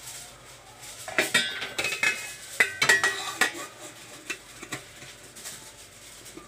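Stainless steel steamer lid being set on the pot: a quick run of metal clanks and scrapes against the rim, with short ringing, then a few lighter taps as it settles.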